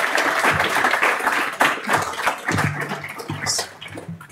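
Small audience applauding: a dense patter of hand claps that thins out and fades near the end.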